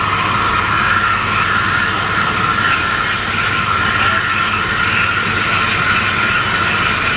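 Thaco EZ50S wire-cutting machine running: a steady, even noise with a constant whine held at one pitch.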